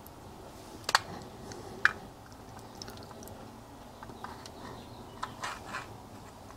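Handling sounds from an aluminium two-stroke motorcycle cylinder being turned over in the hands: two sharp clicks about one and two seconds in, then a few softer clicks and knocks, over a faint steady background.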